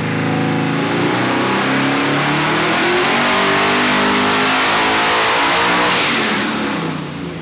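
Twin-turbo LS V8 running under load on a hub dyno: the engine note climbs in pitch as it pulls, with a rising rush of turbo and exhaust noise, then it backs off about a second before the end.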